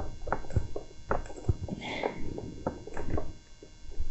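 Irregular small clicks and knocks of hands handling wiring and plastic parts inside a mobility scooter's steering column, with a brief rustle about two seconds in.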